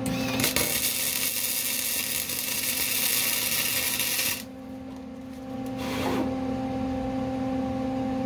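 Welding arc crackling steadily while a bead is laid on the subframe connector for about four seconds, then stopping, with a short second burst about six seconds in.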